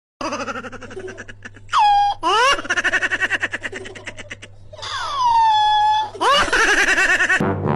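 A person laughing hard in quick, pulsing bursts, breaking twice into high squeals that fall in pitch.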